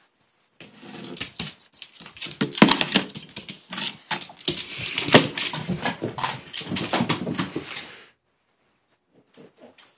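Dog whining excitedly while its claws click and scrabble on a tile floor as it pounces at a laser-pointer dot. The sound cuts off abruptly about eight seconds in.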